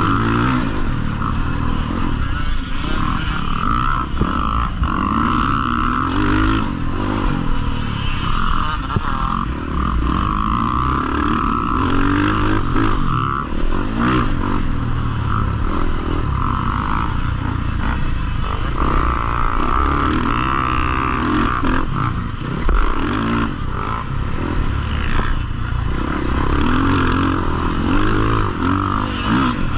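Husqvarna FC450 motocross bike's single-cylinder four-stroke engine running under hard riding, revving up and falling back again and again with throttle and gear changes.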